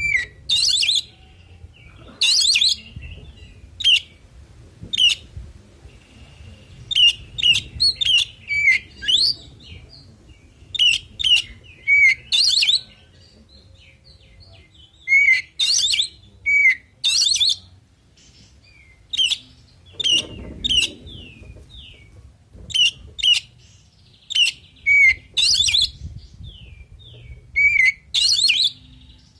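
Oriental magpie-robin (kacer) singing: short bursts of rapid high chattering notes, many ending in a downward-sliding whistle, repeated every second or so with brief pauses.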